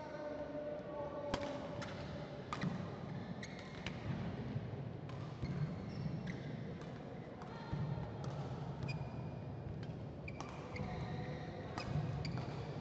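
Badminton rally: rackets strike the shuttlecock in a string of sharp cracks, and short high-pitched shoe squeaks come from the court mat between the shots.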